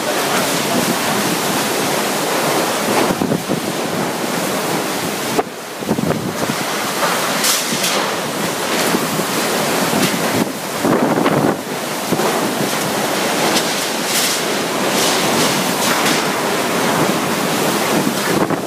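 Typhoon-force wind blowing in strong, surging gusts with heavy rain, and the wind buffeting the microphone. The wind drops briefly about five and a half seconds in.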